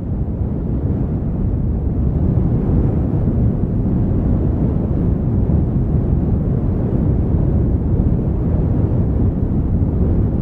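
Steady low rumbling noise like wind, with no distinct crackles or knocks, swelling up over the first couple of seconds and then holding even.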